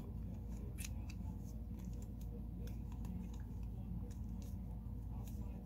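Screwdriver turning a mounting screw into the base of a Cooler Master Hyper 212 LED CPU heatsink: scattered small metallic clicks and scrapes, the sharpest about a second in, over a steady low hum.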